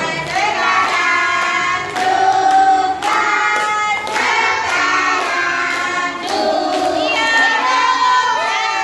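A group of women and children singing a birthday song together, clapping along.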